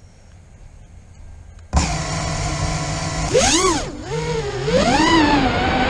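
FPV freestyle quadcopter's brushless motors and propellers, cutting in suddenly about two seconds in with a steady whine. The whine then rises and falls in pitch twice as the throttle is worked.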